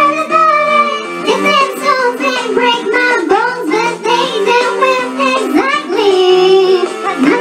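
A woman singing into a handheld microphone over a backing music track, her voice gliding between held notes.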